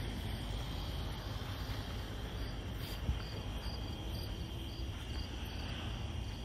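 Crickets chirping at night: a steady high trill, joined a couple of seconds in by a regular chirp about two to three times a second, over a low background rumble.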